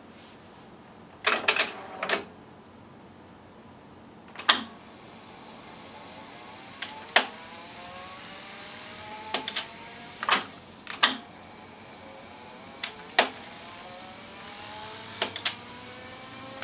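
Akai GX-77 reel-to-reel tape deck operated by its transport buttons: sharp clicks and clunks as the keys are pressed and the transport engages and stops, and two spells of the reels fast-winding the tape with a hiss and a whine that rises in pitch.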